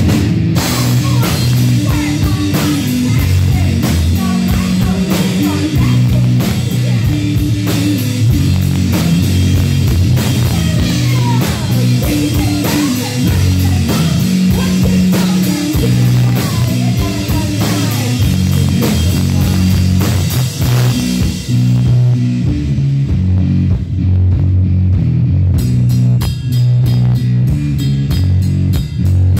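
Live rock band playing loud: drum kit and electric guitar. About two-thirds of the way through, the drums and cymbals drop out for a few seconds, leaving the guitar alone, then come back in with fast, even hits.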